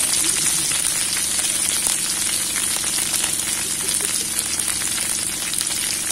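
Beaten salted duck egg frying in hot oil in a wok: a steady sizzle with many fine crackles.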